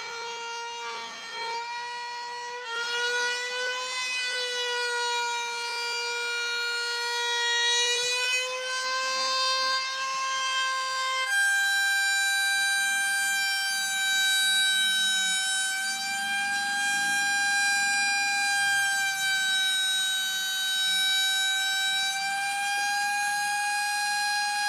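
Circular saw motor running free with a steady high whine. The pitch jumps up abruptly about eleven seconds in.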